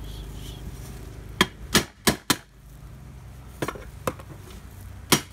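Metal parts of a rotary hammer drill being handled and knocked together during reassembly: about seven sharp clacks and clinks at uneven intervals, the loudest a quick cluster in the middle.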